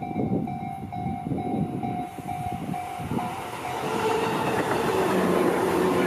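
Japanese level-crossing warning bell ringing in a steady beat of about two to three strokes a second, while an electric commuter train approaches with rumbling wheels. From about four seconds in the train passes close by and its wheels and motors become a loud, steady rush with a low motor hum.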